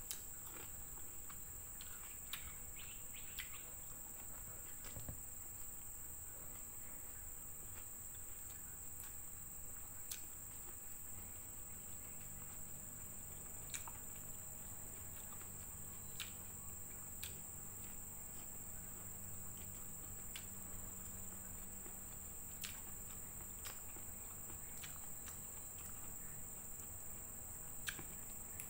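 Quiet eating by hand from a plate of rice and fried fish: soft chewing with scattered sharp clicks and smacks every few seconds, over a steady high-pitched drone.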